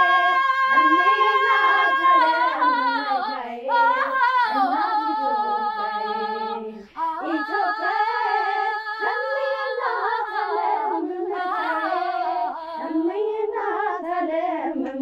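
A young woman's solo voice singing without accompaniment: long held notes with vibrato and sliding melismatic runs, with a short breath about seven seconds in.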